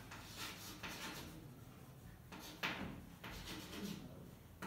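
Chalk writing on a blackboard: a series of faint, scratchy strokes and taps as letters are chalked out.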